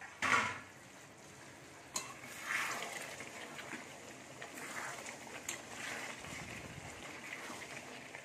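A spoon stirring chicken pieces through thick simmering curry gravy in a metal kadai: wet sloshing with a click of the spoon against the pan about two seconds in. A brief louder burst of noise comes right at the start.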